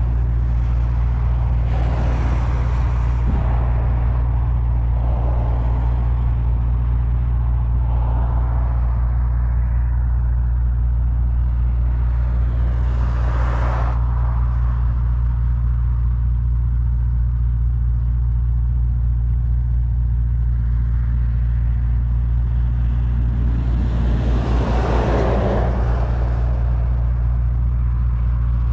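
Car engines idling with a steady low rumble. Vehicles pass on the road about 2, 13 and 25 seconds in, each swelling and fading, the last one loudest.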